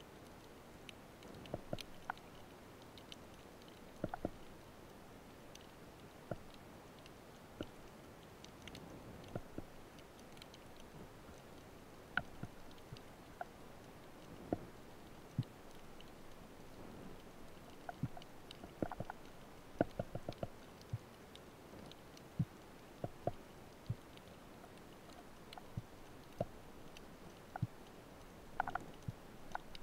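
Underwater ambience over a shallow rocky reef: a faint low hiss with scattered sharp clicks and pops at irregular intervals, bunched more thickly about two thirds of the way through.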